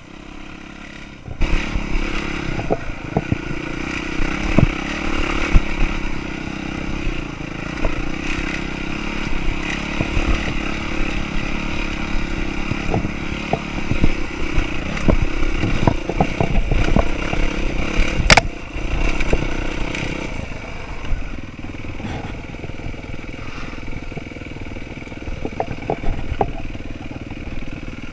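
Dirt bike engine running as the bike is ridden over a rough trail, heard from a camera mounted on the bike, with frequent knocks and rattles from the machine over bumps. The engine gets louder about a second and a half in, there is a single sharp crack around the middle, and it eases off after about twenty seconds.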